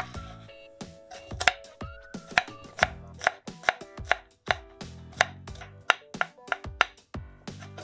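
A white ceramic knife chopping garlic cloves on a bamboo cutting board: crisp, even knocks of the blade on the wood, about two a second.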